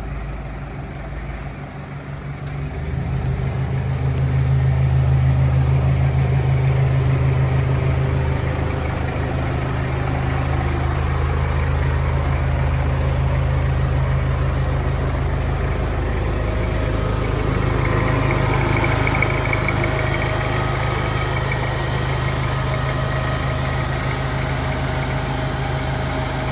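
Vehicle engine idling steadily with a deep, even hum; it gets louder about three seconds in.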